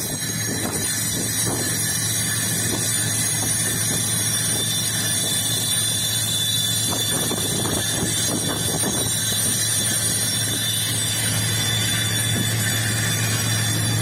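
Freight train with a diesel locomotive running along the track: a steady low engine hum under rail noise, with a thin steady squeal from the wheels.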